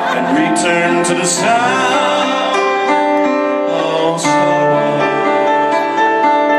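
Strummed acoustic guitar with a sung note wavering early on, then a chord held steady.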